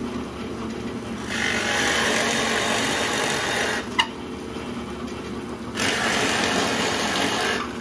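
Drill press running with a 1-inch Forstner bit boring into a wooden decoy body: two plunges, each a louder cutting hiss over the motor's hum, the first from about a second in to nearly four seconds, the second from about six seconds to near the end. A sharp click between the two.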